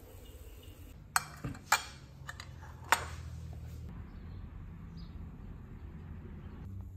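A metal spoon clinking against a ceramic plate: about five sharp clinks between about one and three seconds in, over a low steady hum.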